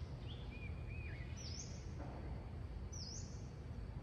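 Outdoor ambience with a low steady rumble, and birds calling over it. There are a few short whistled notes in the first second, then sharp dipping chirps repeated about every second and a half.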